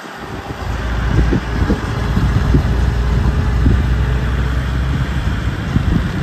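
Low, steady rumble of a vehicle in motion, engine and road noise, with irregular thumps. It builds up about half a second in.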